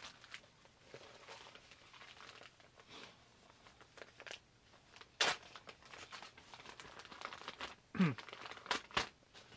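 Plastic packaging crinkling and rustling as it is handled, with a few sharper, louder crackles about five seconds in and again near the end.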